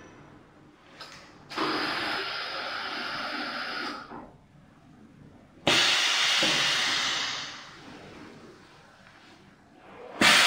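Hissing bursts of compressed air from the pneumatic press of a wooden-spoon thermoforming machine, each starting suddenly: one about a second and a half in that holds for over two seconds and cuts off, a second near the middle that fades away over a couple of seconds, and a third just before the end.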